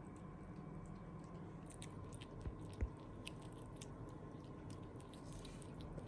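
A pet chewing food: a run of small crisp clicks and crunches, with two dull knocks about two and a half seconds in, the second the louder.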